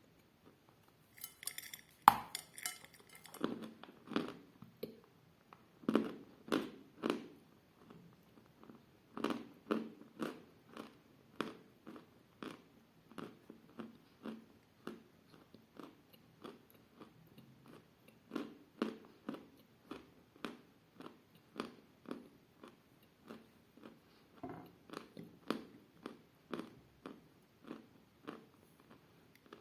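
A person biting and chewing pieces of chalk, with crunches about two a second. There is a sharp click about two seconds in.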